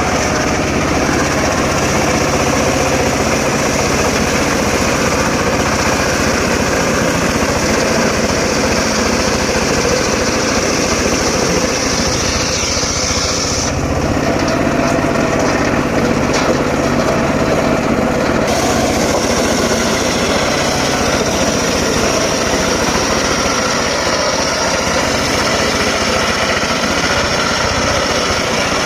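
Engine-driven circular sawmill running steadily as it saws teak logs, with a high whine from the blade. The whine drops away for a few seconds midway, then comes back.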